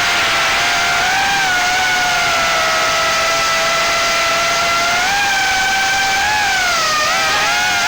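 Brushless motors and propellers of a small 3-inch FPV quadcopter (GEPRC 1206 4500kv motors on a 4S battery) whining in flight, the pitch rising and falling with the throttle. The pitch steps up about five seconds in and wavers quickly up and down near the end.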